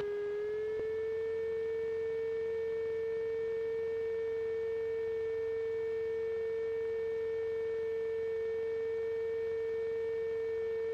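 Steady engine drone of a PiperSport's Rotax 912 at low taxi power, heard through the cockpit intercom as one held whining pitch with fainter overtones; the pitch steps up slightly about a second in.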